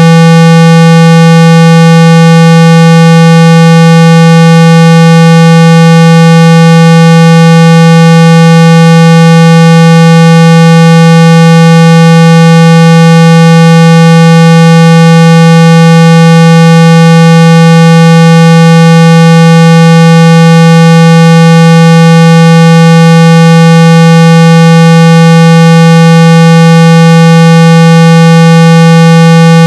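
Steady, very loud 165 Hz test tone, buzzy with a string of higher overtones and unchanging throughout: a phone speaker-cleaning tone meant to shake dust and water out of the speaker grille.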